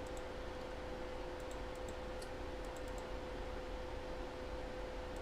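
A few faint, short clicks scattered through the first three seconds, over a steady electrical hum and room tone.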